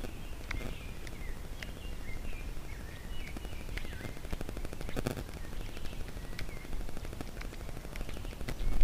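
Irregular sharp clicks and crackling, with a stretch of fast fine ticking in the middle and a few faint short high chirps.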